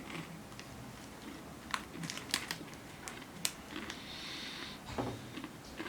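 Mouth sounds of someone eating thin crunchy sandwich cookies: scattered crisp crunches and clicks, a soft breath or sniff about four seconds in, and a low thump near the end.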